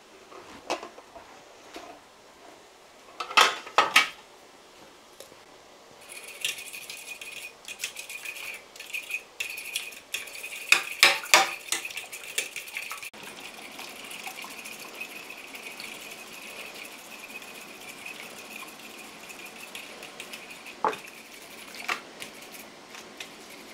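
Eggs and spices being beaten in a bowl: a utensil ticks rapidly against the bowl, starting about six seconds in and easing off halfway through. A few louder clinks of kitchenware come around three to four seconds in and again near the middle.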